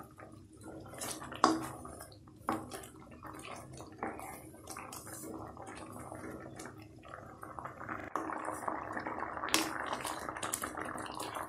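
Grated pumpkin in thick jaggery syrup bubbling and popping in a metal kadai while a spatula stirs and scrapes through it, the mixture reducing toward halwa consistency. About eight seconds in, the stirring becomes a steadier wet churning.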